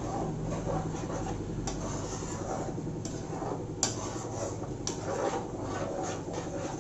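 Spatula stirring and scraping masala gravy in a kadai, with a few sharp knocks of the spatula against the pan.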